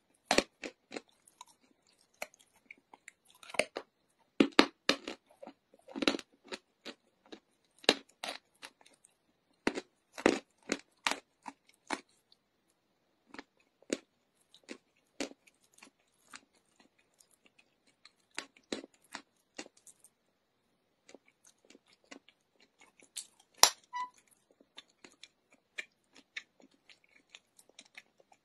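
A person chewing chalk: irregular sharp crunches, thick and frequent through the first half, then sparser, with one louder crunch late on.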